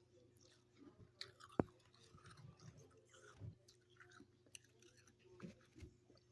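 A person chewing soft, crunchy freezer frost, with small crackling crunches and one sharp louder click about one and a half seconds in.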